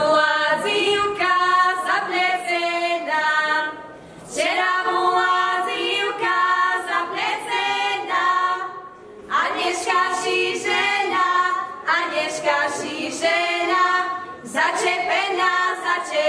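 A group of women singing a Slovak folk wedding song a cappella for the čepčenie, the capping of the bride, in phrases of a few seconds with short breaks between them.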